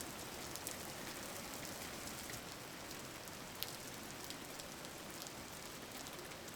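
Steady rain falling: an even hiss flecked with the ticks of single drops, one sharper tick about three and a half seconds in.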